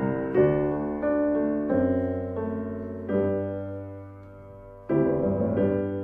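Piano playing slow, sustained chords, each struck and left to ring and fade, with a louder chord about five seconds in.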